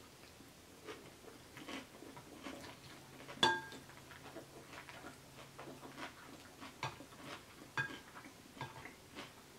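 Metal fork clinking and scraping against a glass bowl of pasta salad, with soft chewing between. The loudest, ringing clink comes about three and a half seconds in, and another near the end.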